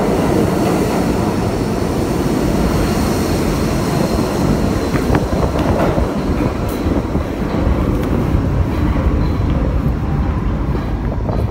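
A New York City subway train running along the platform: a loud, steady low rumble that eases off slightly near the end.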